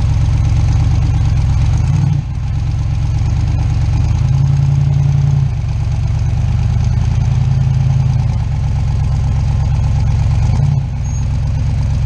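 Rock buggy's engine running under load on a rock ledge, the throttle fed and eased off by turns: it climbs in revs twice, about four and seven seconds in, with brief drops in between.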